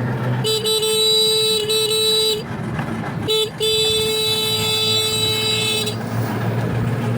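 A vehicle horn sounds three times: a long blast of about two seconds, a short toot, then another long blast, over a steady low engine rumble.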